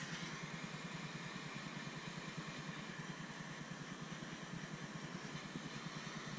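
Small handheld butane torch flame hissing steadily as it heats and shrinks glue-lined heat shrink tubing over a wire. A low, rapid, steady throb runs underneath.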